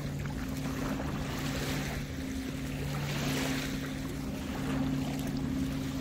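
Boat motor humming steadily at a low pitch, under water washing and rising and falling, with wind on the microphone.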